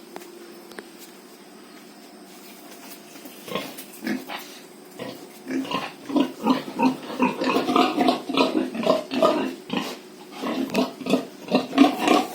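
Pigs grunting in quick, short calls, starting about three and a half seconds in and building into a busy, overlapping chorus, with a brief lull near ten seconds before it picks up again.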